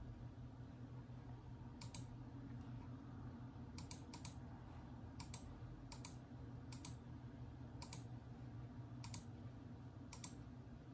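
Separate clicks of text being entered on a computer, one character at a time, roughly one every half second to second, over a faint low steady hum.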